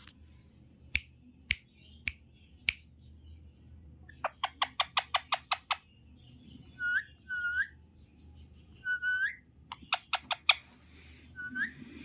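Young Indian ringneck parakeet making sharp clicks, single ones at first and then a quick run of about eight, and short hooked whistled notes a few times in between.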